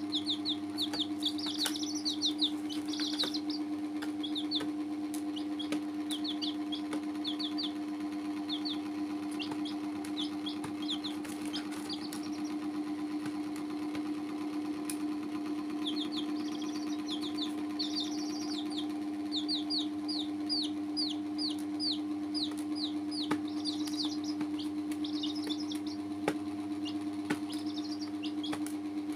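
Several baby chicks peeping in runs of short, falling peeps, with a lull of a few seconds near the middle, over a steady low hum.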